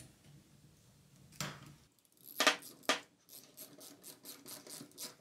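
Worm-drive hose clamp on a rubber collar being tightened with a screwdriver: a few separate clicks, then a steady run of short clicks about four a second from the screw working through the band.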